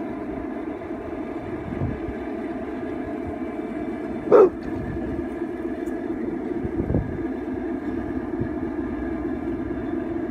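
Garden-scale model train with diesel locomotives running on outdoor track, giving a steady engine-like hum. One brief loud sound cuts in about four seconds in.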